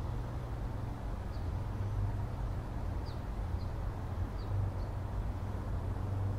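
Steady low outdoor rumble, with a few short high bird chirps: one about a second and a half in and several more between three and five seconds in.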